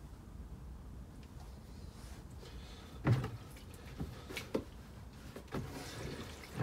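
A foam air filter being submerged and squeezed by hand in a plastic bucket of mineral turpentine: faint liquid sloshing with a few short clunks against the bucket, the loudest about three seconds in.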